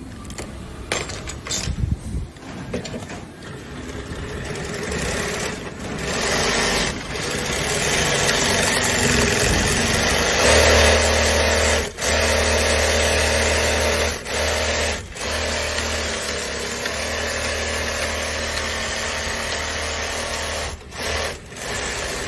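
Double-needle lockstitch industrial sewing machine stitching at speed, with a few knocks before it gets going. It stops for a moment several times, then cuts out near the end.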